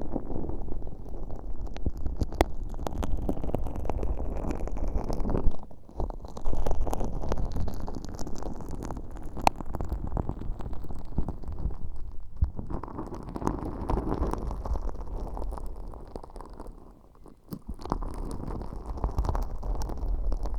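Stiff, sticky glitter slime worked right against a bare dummy-ear microphone with an earpick: a dense, close-up squishy rumble full of small sticky clicks. It goes in three long stretches with short breaks about 6, 12 and 17 seconds in.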